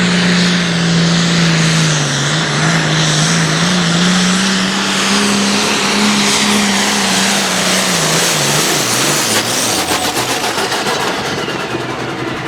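Turbocharged diesel tractor engine at full power pulling the sled, holding a loud, steady high-rev note. About eight seconds in the pitch wavers and drops, and the revs fall away into separate, slower firing pulses near the end.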